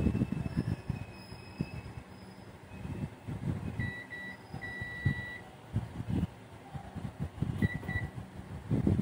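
Digital multimeter's continuity beeper sounding as test probes touch points in a children's ride-on toy car's wiring: two short beeps about four seconds in, one longer beep of nearly a second, then two more short beeps near the end. Low rustling and knocks of wires and parts being handled run underneath, loudest at the start.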